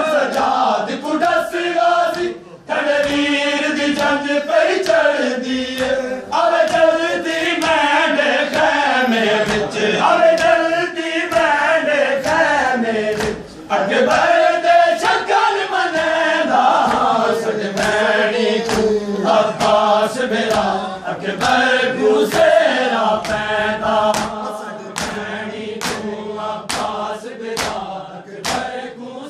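A group of men chanting a noha together in long sung phrases, with sharp hand slaps of chest-beating (matam) in time with it, coming thicker and more regular near the end.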